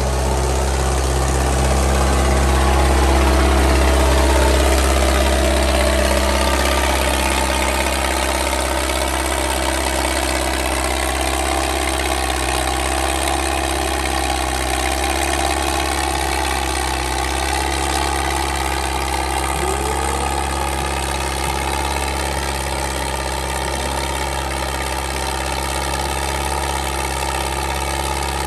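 Mahindra Arjun tractor's diesel engine running at high revs, a steady heavy drone that is loudest in the first few seconds.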